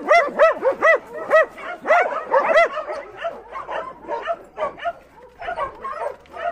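Several dogs barking excitedly behind a wire fence as they wait for treats, rapid loud barks in the first few seconds giving way to quieter, higher yips and whines.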